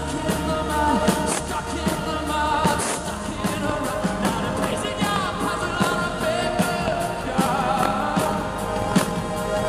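Live rock band playing: a man's lead vocal sung over electric guitar and drums with steady drum hits.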